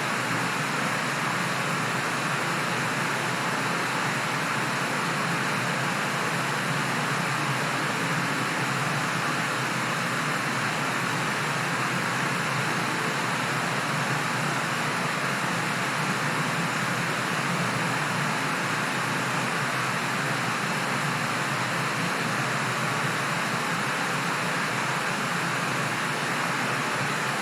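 Steady rushing air: an even hiss that holds at one level, with no changes or separate events.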